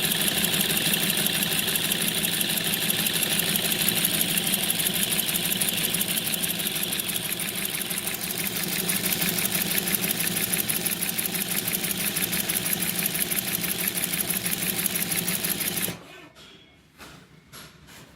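G-TEK single-needle high-speed industrial sewing machine with a pleating attachment running at speed, with a rapid, even clatter. It stops abruptly near the end, and a few faint clicks follow.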